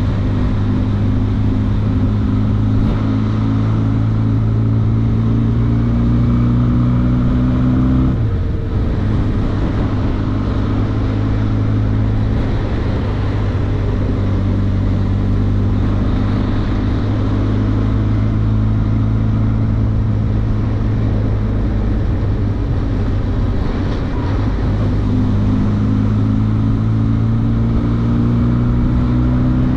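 Benelli TRK502X's parallel-twin engine running under way, its note climbing slowly, with brief drops about eight seconds in, again past twenty seconds and at the very end. Wind rush runs under the engine.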